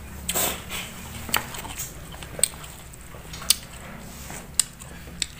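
A person chewing with the mouth close to the microphone: a scattering of sharp, wet mouth clicks and smacks, irregularly spaced about a second apart.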